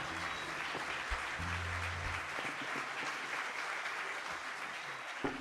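Audience applauding, with low sustained music notes underneath.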